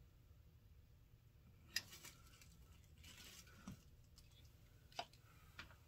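Near silence with a few scattered sharp clicks and a brief soft rustle: the flat iron and the synthetic wig hair being handled.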